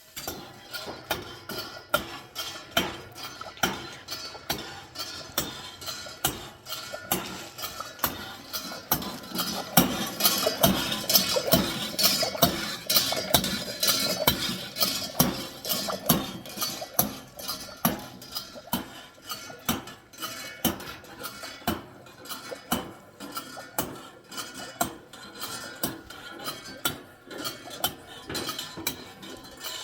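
A metal utensil repeatedly clinking and scraping against a metal pan, about two strikes a second, loudest midway through.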